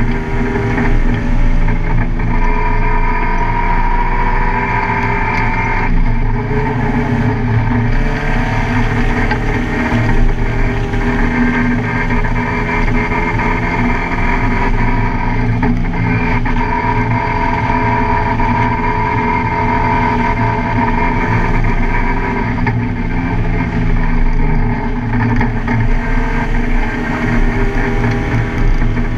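Car engine running hard and continuously at track speed, its pitch shifting up and down every few seconds with throttle and gear changes.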